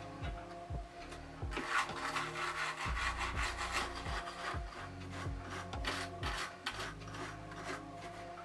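Small brushes scrubbing lint out of a sewing machine in quick back-and-forth strokes, strongest from about one and a half seconds in until near the end, over soft ambient background music.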